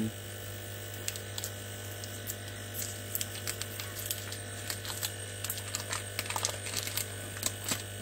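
Light crinkling and crackling of a thin plastic wrapper being peeled off a stick of M-Seal epoxy putty, scattered irregular clicks over a steady low hum.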